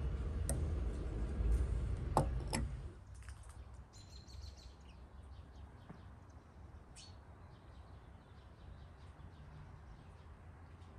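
Small birds chirping in short high calls. They follow a louder stretch of about three seconds of low rumble with a few sharp knocks.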